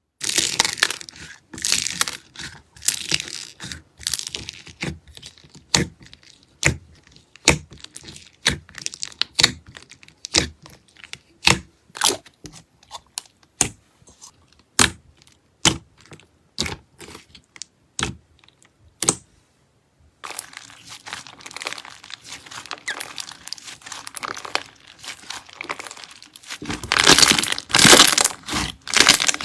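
Slime being squished and stretched: many sharp, irregular clicking pops. After a short break it turns to a dense crackling, crinkly sound that is loudest near the end.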